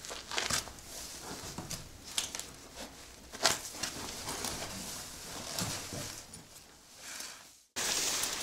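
Irregular scuffs, scrapes and small crunches of shoes, knees and hands on a gritty dirt floor as a person crawls through a low gap, with clothing rustling. Near the end the sound cuts off abruptly and gives way to a steady outdoor hiss.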